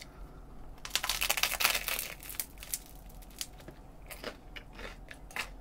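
A bite of tomato ciabatta with a crisp crust being chewed: a dense run of crackling crunches about a second in, then sparser crunches as the chewing goes on.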